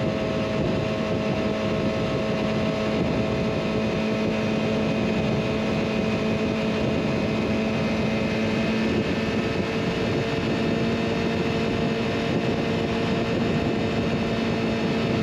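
Motorcycle engine running at steady revs while riding, with wind rushing over the action camera's microphone.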